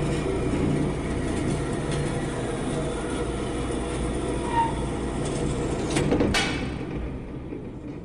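Metal-cutting band saw running through a metal bar: a steady mechanical hum and grinding rasp of the blade in the cut. Two sharp knocks come about six seconds in, then the sound dies away near the end.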